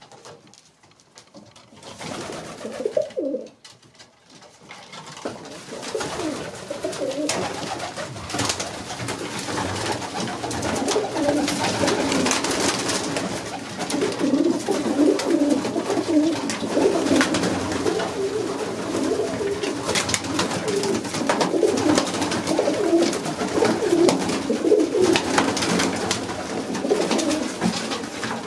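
A flock of Vienna highflyer pigeons cooing together, a low warbling chorus that starts sparse and thickens into a continuous murmur of overlapping coos about six seconds in. Scattered sharp clicks run through it.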